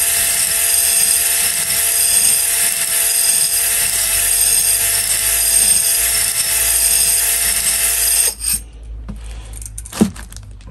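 Cordless drill running steadily in reverse, spinning a spring-loaded hone against the glazed cylinder bore of a 250cc quad engine to put crosshatching back into it; it stops suddenly about eight seconds in. A few light knocks follow as the drill is set down.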